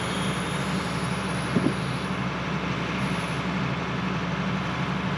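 Excavator-mounted hydraulic breaker hammering its chisel steadily down into the soil, over the excavator's running engine.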